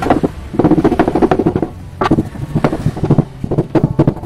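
Hammer beating a dent out of a 2005 Mitsubishi Kuda Grandia's sheet-metal body panel with light blows, in quick runs of several strikes a second broken by short pauses.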